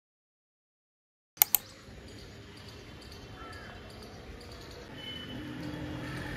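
Silence, then two sharp clicks about a second and a half in, followed by quiet steady background ambience with a few faint bird chirps.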